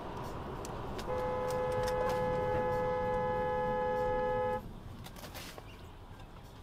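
Car horn sounding in one long steady blast of about three and a half seconds, starting about a second in, over steady road noise inside a moving car.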